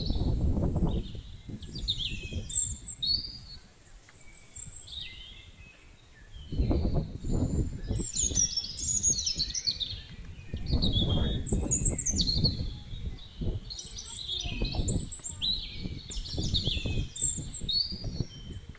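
Several birds chirping and singing, with many short, quick calls overlapping, over irregular low rumbling noise that comes and goes in stretches and is the loudest sound.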